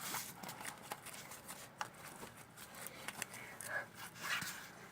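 Faint handling noises: scattered light clicks and rustles of small objects being moved about.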